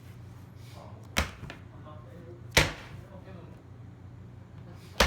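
Three sharp hits, the first about a second in and the others roughly a second and a half to two and a half seconds apart, each dying away quickly, over a low steady hum.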